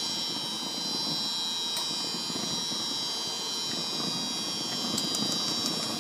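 Steady whir of an electric auxiliary blower fan on a model steam locomotive's chimney, drawing the coal fire while steam is raised, with a high whine over it. A few light clinks of coal from a small shovel come near the end.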